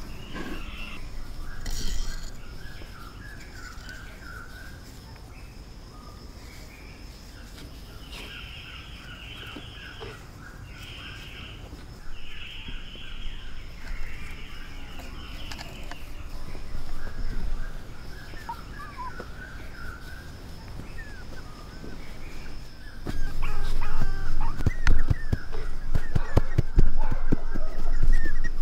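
Forest ambience: birds calling and a steady high insect drone. For the last several seconds it gets much louder, with knocks and rustling, and puppies start to whimper.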